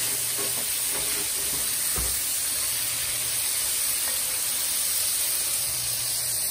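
Seasoned fish slices frying in hot oil in a pot, a steady sizzle. A single knock sounds about two seconds in.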